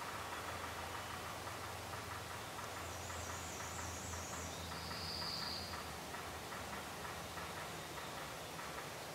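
Spring woodland ambience: a small songbird gives a high, rapid trill about three seconds in, followed by a second high, thin call about five seconds in, over a low steady hum.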